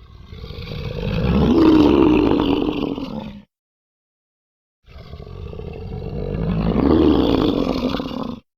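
Dragon roar sound effect, heard twice: each roar swells to a loud peak and then fades over about three and a half seconds, with a second and a half of dead silence between them.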